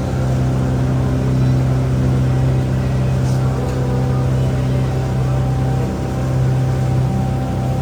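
Engine of a river water-taxi boat running steadily at cruising speed, heard from on board as a constant low drone with a faint wash of water.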